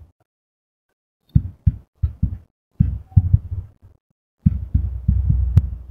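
Fingertips tapping on a tablet's touchscreen keyboard, picked up by the tablet's own microphone as a run of dull, low thumps at a typing pace. Near the end a low rumble of handling noise runs under the taps.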